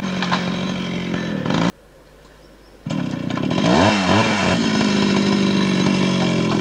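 Small petrol engine running at a steady speed, cut off abruptly for about a second. It swings up and down in pitch shortly after it comes back, then settles at a steady speed again.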